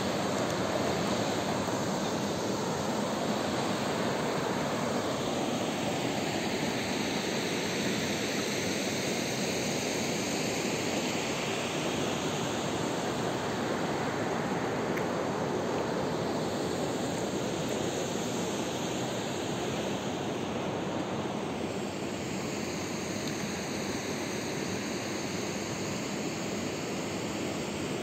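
Mountain river rushing over a stony bed and shallow rapids, a steady hiss of water.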